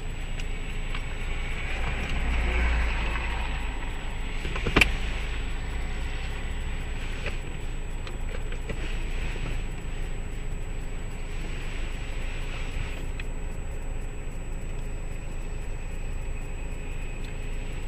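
Steady low rumble of a car, heard from inside the cabin, with one sharp click about five seconds in.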